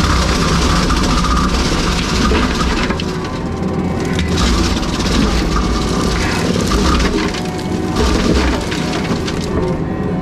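Brush Hound FH Series flail mower on a skid steer, its engine and flail drum running hard while the drum shreds wood, with constant crackling and splintering.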